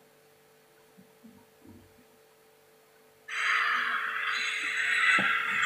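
Near silence, then about three seconds in a sudden burst of crowd applause from a tennis match broadcast.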